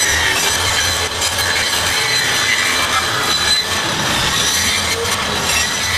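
Handheld circular saw running steadily as it cuts along the edge of a UHMW polyethylene sheet, trimming the excess poly off a boat hull.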